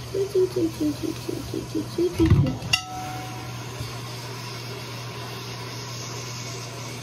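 A steady low hum runs throughout. A person's soft voice makes short pitched sounds over the first two seconds, and a thump and a sharp click come about two and a half seconds in.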